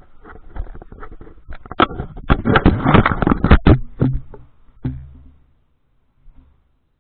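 Camera handling noise: a run of rubbing and scraping clicks on the microphone as the camera is set down on the stone pool edge, ending with a single knock about five seconds in.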